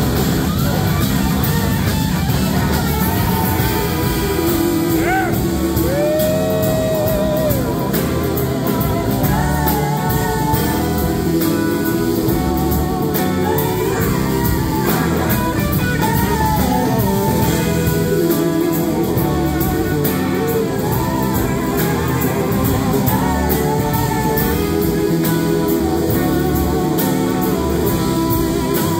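Live blues-rock band playing: electric guitars and drums, with a woman singing lead.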